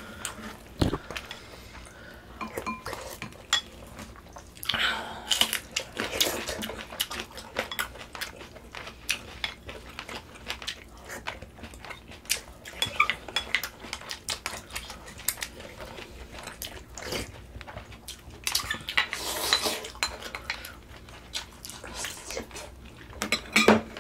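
Eating sounds at a meal of gamjatang: spoons and chopsticks clicking and clinking against bowls in scattered irregular taps, with chewing between them.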